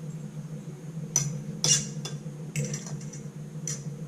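Cutlery clinking against a plate of food: four or five sharp clinks at irregular intervals, the loudest a little before the middle, over a steady low hum.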